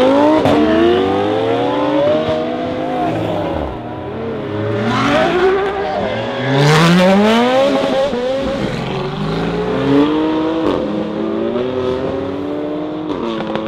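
Supercars accelerating hard away one after another, first a Lamborghini Huracán's V10, then a Ferrari LaFerrari's V12. Each engine revs up in rising sweeps, cut short by quick upshifts.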